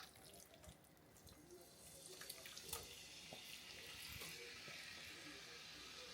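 Seasoned chicken pieces going into a hot pan: a few light clicks and taps, then a faint, steady sizzle that starts about two seconds in and keeps going.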